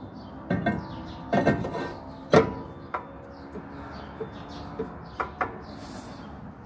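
Nissan X-Trail rear brake disc, the drum-in-hat type that holds the handbrake shoes, being worked over the wheel studs onto the hub: a series of metal clanks that ring on briefly, the loudest about two and a half seconds in, with two quick ones near the end.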